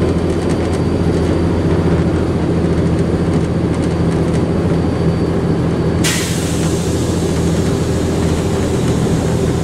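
Volvo Olympian double-decker bus engine running steadily, with a thin high turbocharger whistle over the first half. About six seconds in, a sudden loud hiss starts and carries on over the engine.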